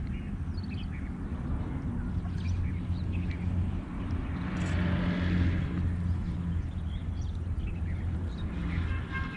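Outdoor ambience: a steady low drone, with faint bird chirps scattered through it.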